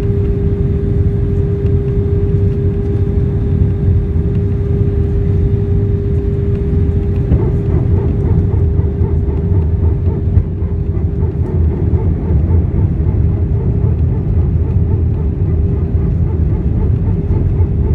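Airliner cabin noise inside an Airbus A319-131 in flight: a steady rumble of airflow and engines with a constant humming tone running through it.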